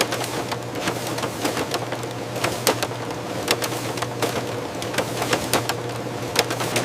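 Factory machinery running: a steady low hum under irregular clicks and clatter, several a second.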